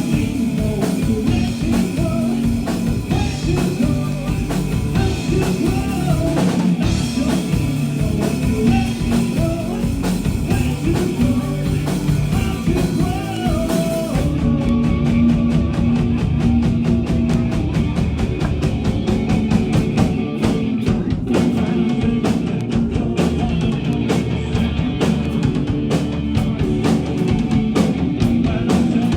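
A live rock band playing, led by a pounding drum kit. About halfway through, the cymbal wash drops out and the drums and band carry on.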